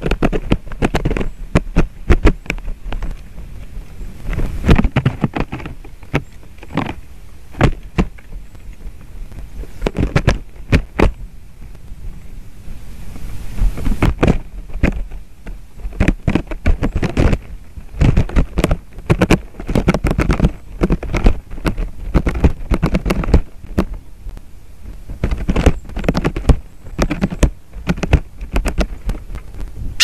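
Irregular, loud knocking and tapping close to the microphone, coming in uneven clusters.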